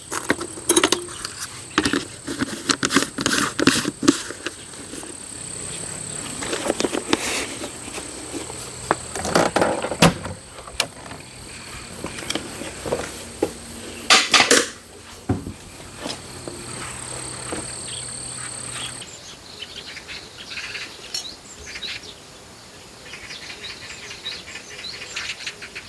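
Insects trilling with a steady high-pitched tone that stops abruptly about three-quarters of the way through, over many irregular close clicks and rustles.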